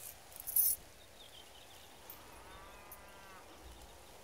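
A bunch of metal keys on a ring jingles briefly about half a second in. A faint animal call follows around three seconds in.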